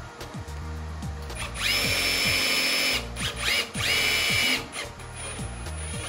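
Cordless drill working on an aluminium carport post, its motor whining up to speed and running steadily in two bursts a second or so apart, with a short blip between them.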